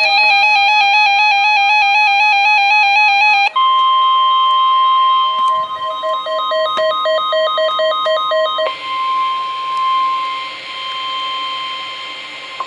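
Electronic beeping of quickly alternating pitched tones, then about three seconds in the steady 1050 Hz warning alarm tone of NOAA Weather Radio, which sounds ahead of a warning broadcast. The beeping continues over the tone until about two-thirds of the way through; after that the tone sounds alone over radio hiss, stopping just before the end.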